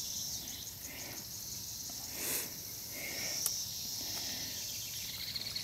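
Insects chirring steadily at a high pitch, with a brief soft rustle about two seconds in and a faint click a little later.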